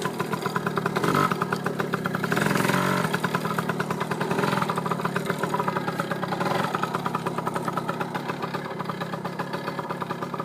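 Dirt bike engine running, picking up a little between about one and three seconds in and again around four and a half seconds, then settling to a steadier, quieter run.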